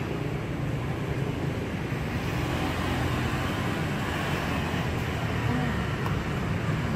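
Steady street traffic, with motorbikes riding past on the road.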